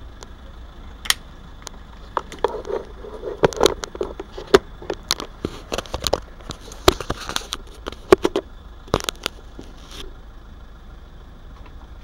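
Irregular clicks, taps and knocks of handling noise as the camera is moved and set back down, thickest between about two and nine seconds in and stopping about ten seconds in.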